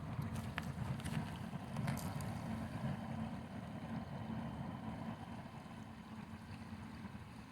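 River water flowing steadily, a low rushing sound, with a few light ticks in the first two seconds.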